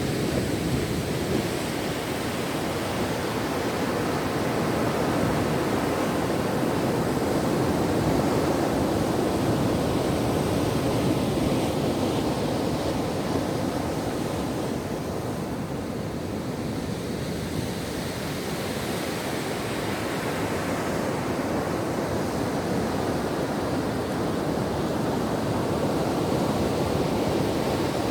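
Ocean waves breaking on a shore: a steady rushing surf that swells and eases gently in level.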